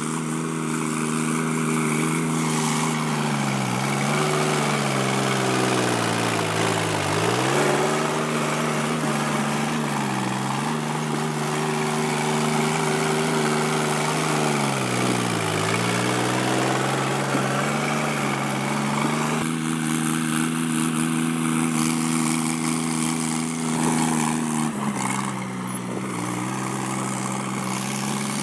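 Sonalika DI 50 RX Sikander tractor's diesel engine running under load while pulling a rotavator through the soil. Its note sags and recovers four times in the first half as the tilling load bears on it, then holds fairly steady.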